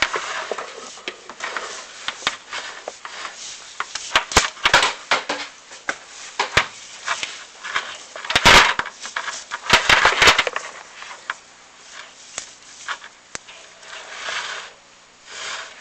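Scattered ticks and clicks, with two louder scraping rushes about eight and ten seconds in: loose debris kicking around inside a chimney flue as an inspection camera is lowered down it.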